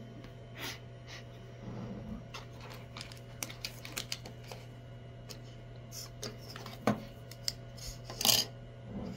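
Scattered light clicks, taps and rattles of small parts being handled on a wooden tabletop: a clear plastic box of small disc magnets is opened and 3D-printed plastic tool tags are moved. There is a sharp click a couple of seconds before the end and a short rattle just after it, over a low steady hum.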